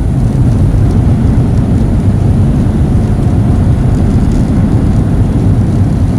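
Loud, steady low rumble of an airliner cabin: jet engine and airflow noise heard from inside the plane.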